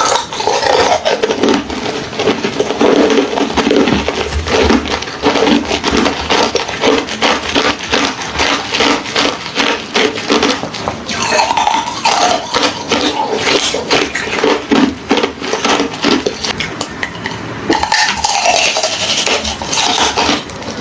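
A person biting and chewing hollow, refrozen ice, with dense, irregular crunching and crackling throughout.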